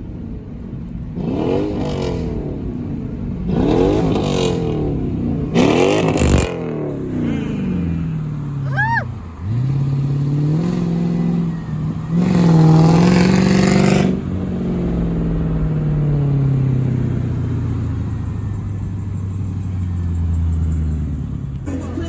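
Straight-piped 2004 Mercedes CLK500's 5.0-litre V8, exhaust open from the secondary cats back, blipped three times in quick succession, then pulling hard for a few seconds before the note falls away slowly as it eases off.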